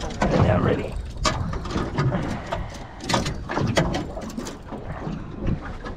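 Fishing reel being wound in against a heavy fish, giving irregular mechanical clicks and knocks over a low rumble.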